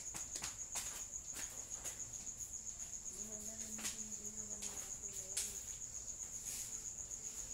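A cricket trilling steadily at a high pitch, with several sharp clicks scattered through; the loudest click comes a little past the middle.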